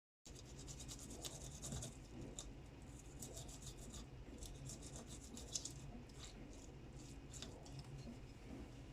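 Faint scraping and rasping of fresh ginger and garlic being worked by hand into a paste with a small kitchen tool, with many light irregular ticks.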